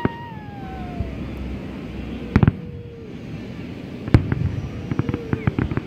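Fireworks display: a sharp double bang of a shell burst about two seconds in, and a louder single bang just past four seconds. These are followed by a quick run of crackling reports from a row of crackling bursts.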